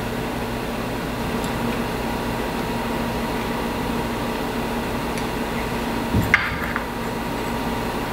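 Steady mechanical hum of room machinery, with a spoon clinking once about six seconds in as crushed hard candy is spooned into a mold.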